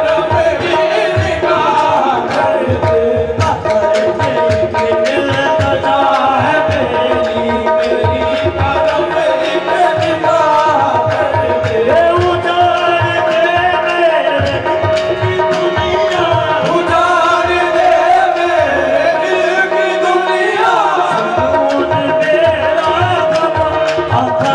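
Qawwali music: tabla playing a steady rhythm under a held drone, with voices singing a gliding melody over it.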